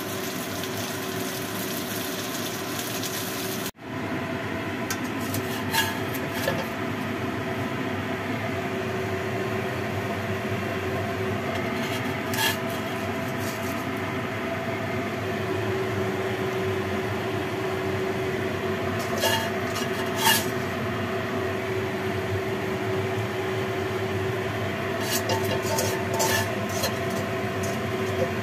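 Steady kitchen hum with a scattering of short, sharp clinks and scrapes of a spatula against a stainless steel wok as pieces of pan-fried fish are lifted out. The sound drops out for an instant about four seconds in.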